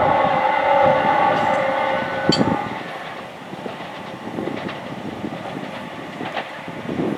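Electric passenger train passing below, its motors whining in several steady tones that fade away about three seconds in. A sharp metallic click comes about two seconds in, followed by a quieter rumble of wheels on track with scattered clacks.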